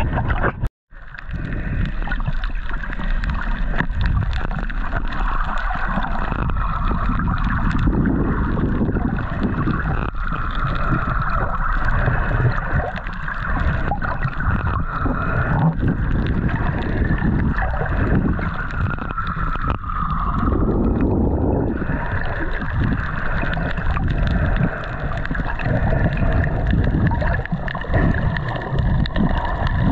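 Boat under way: its engine running steadily with water rushing and sloshing against the hull and wind on the microphone. The sound drops out for a moment about a second in.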